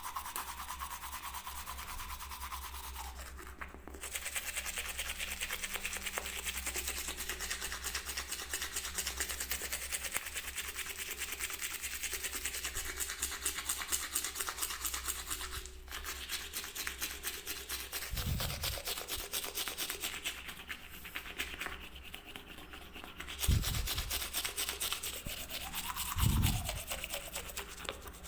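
Toothbrush bristles scrubbing in rapid back-and-forth strokes, with two brief breaks, and three short low thumps in the last third.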